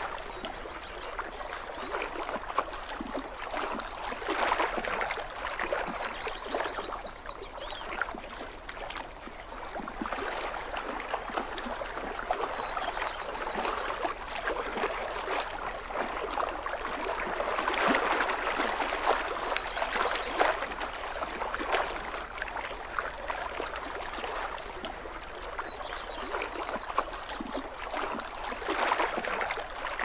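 Small waves lapping and splashing against the rocky lake shore: a continuous wash of gurgles and little splashes that swells a little around the middle.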